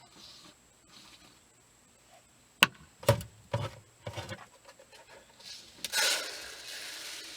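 A few sharp knocks and clicks as containers are handled, then, about six seconds in, a steady granular hiss that slowly fades: mixed Tannerite (beads coated in gray powder) being poured into an empty sugar container.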